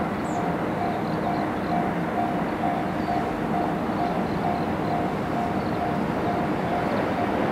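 A 681/683-series limited express electric train approaching from a distance, heard as a steady low rumble and hiss. Over it a railway level-crossing warning bell rings with a steady repeating electronic ding.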